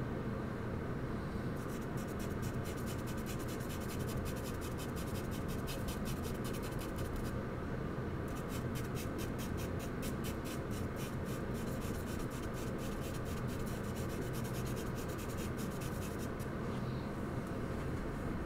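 Charcoal rubbing and scratching on paper in rapid back-and-forth shading strokes, in two runs with a short pause about seven seconds in. A steady low hum lies underneath.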